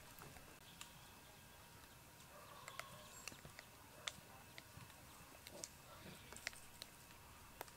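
Near silence with faint, scattered sharp clicks and ticks, as of long-tailed macaques chewing food and handling dry leaves.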